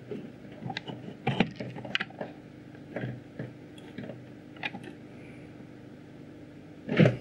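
Handling noise from a subwoofer amplifier circuit board and its soldered wire being turned over in the hands: scattered light clicks and knocks, the loudest near the end, over a faint steady hum.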